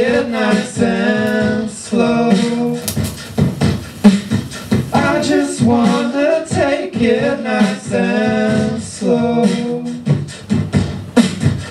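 Live vocal music: wordless singing in a repeating pattern, with sharp clicking, beatbox-like percussion.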